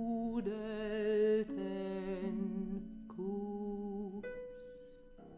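A voice singing slow, held notes with vibrato, the words drawn out, in a sparse piece of contemporary music; from about four seconds in a single steady instrumental tone holds and the sound fades.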